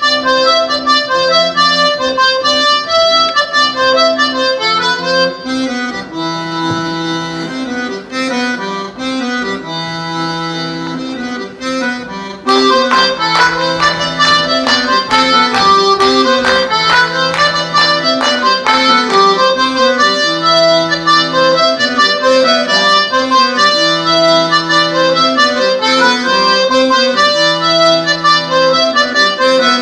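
Lively instrumental Breton dance music playing a repeating tune over a regular bass pattern. About six seconds in it drops to a softer passage. About twelve seconds in it comes back in full, with a run of sharp percussive strikes for several seconds.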